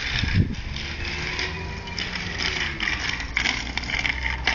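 A child's bicycle with training wheels rolling over rough concrete: a steady gritty rolling with small rattles and clicks. A low thump comes about a third of a second in.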